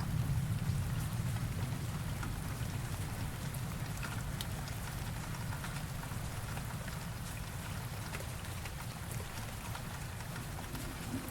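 Steady rain falling with fine scattered drop patters, while the low rumble of a thunderclap fades away over the first seconds.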